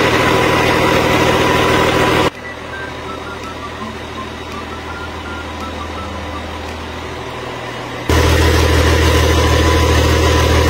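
Freshly rebuilt Cummins M11 inline-six diesel engine running steadily on a test run. It drops sharply quieter about two seconds in and comes back louder near the end.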